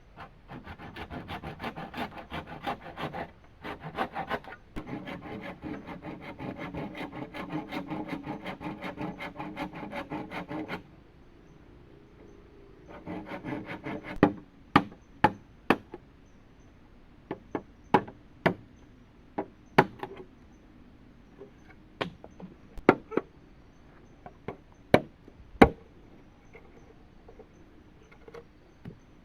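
A hand saw cutting through bamboo in quick, steady strokes that make the hollow cane ring, for about ten seconds. After a brief pause there is a shorter burst of sawing, then a string of sharp, irregular strikes on the bamboo, roughly one a second.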